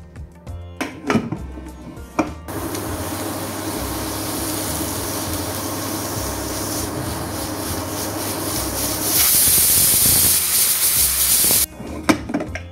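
Aluminium stovetop pressure cooker whistling: steam jets out hissing under its weight valve, a sign the cooker has reached full pressure. The hiss starts a couple of seconds in, grows louder and sharper near the end, then cuts off suddenly.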